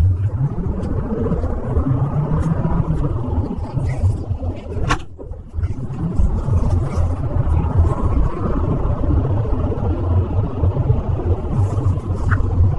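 A fly buzzing close to the microphone: a loud, low, continuous drone whose pitch wavers up and down, dipping briefly about five seconds in.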